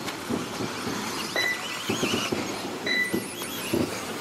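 Electric 1/10 RC buggies racing on a dirt track: motor whines glide up and down with the throttle, amid scattered thumps. A short high electronic beep sounds about every one and a half seconds.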